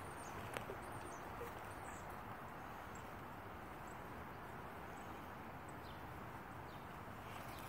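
Quiet outdoor background: a steady low hiss with a few faint, brief bird chirps and a soft click or two near the start.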